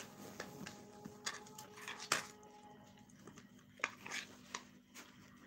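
A scatter of short, sharp clicks and taps at uneven intervals with faint rustling, close to the microphone, the loudest about two seconds in.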